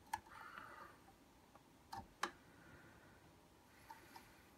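A few faint clicks of metal tweezers tapping against the CD optical pickup inside a boombox's disc well as they try to grip it, the loudest a pair of clicks about two seconds in; otherwise near silence.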